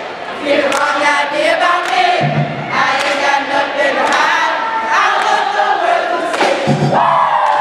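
A crowd of voices, led by cheerleaders, singing and chanting together over music.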